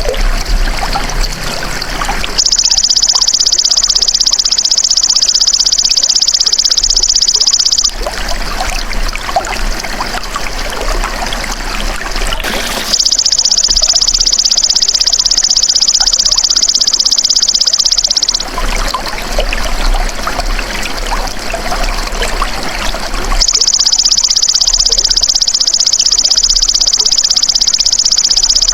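Belalang emas (golden grasshopper) insect calling: a high, rapidly pulsing buzz about five and a half seconds long, given three times with gaps of about five seconds, over a steady trickle of running water.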